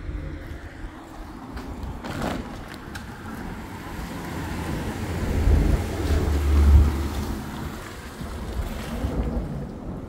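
Stormy wind and rain noise buffeting the microphone. It swells to a heavy low rumble about halfway through, then eases.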